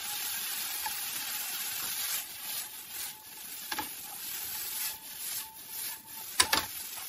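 Sauce sizzling in a hot wok while dried pollock strips and shishito peppers are stir-fried with a wooden spatula scraping across the pan. Near the end the wok is tossed, with two sharp knocks.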